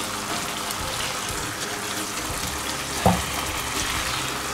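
Chicken, vegetables and wood ear mushrooms sizzling steadily in a frying pan as they are stirred, with a short thump about three seconds in.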